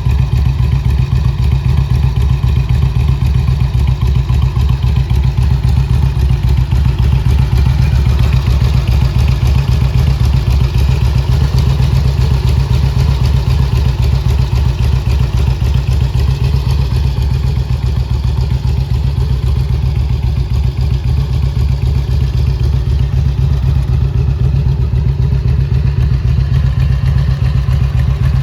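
2002 Harley-Davidson Road Glide's V-twin engine idling steadily through Rinehart exhausts: a loud, low, rapid, even pulsing with no revving.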